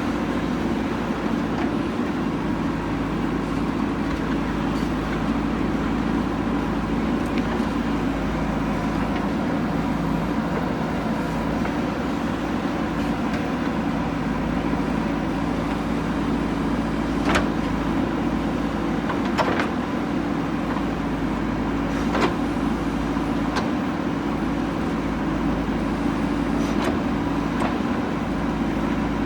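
JCB 3DX backhoe loader's diesel engine running steadily while it digs, with a few sharp knocks in the second half.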